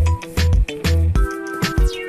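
Background music with a steady, punchy bass beat and bright synth-like melody notes.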